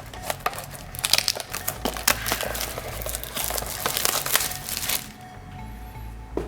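Plastic wrapping on trading-card packs crinkling and rustling as it is handled and opened. The noise is busiest for the first five seconds and thins out near the end.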